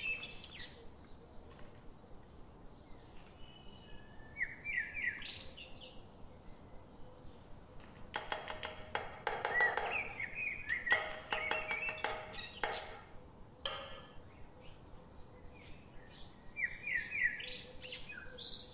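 A small bird chirps in short runs of quick rising notes, over and over. In the middle, a few seconds of clattering and scraping come as ingredients are tipped from steel plates into a pan.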